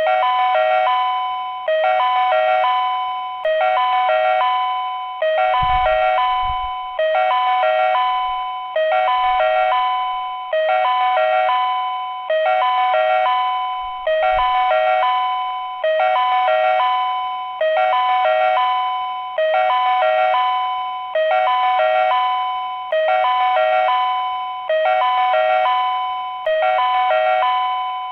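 Ohmi Railway platform train-approach warning chime: a short electronic pattern of alternating high and low notes, repeating about every second and three-quarters. It signals that a train is approaching the platform.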